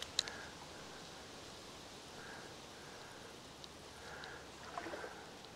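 Faint, steady rush of a flowing stream, with a sharp click just after the start and a few light ticks in the middle.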